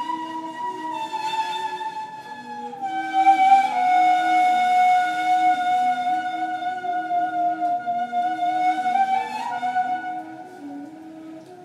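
Two neys, end-blown reed flutes, improvising a slow modal duet. One holds long high notes, sliding down about three seconds in and back up near the end, while the other steps between lower notes beneath it. The playing fades in the last two seconds.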